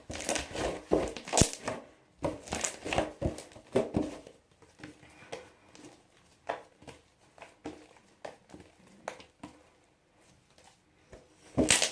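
Slime being kneaded and squeezed by hand, giving irregular sticky crackling clicks that come thick and fast for the first few seconds, then thin out.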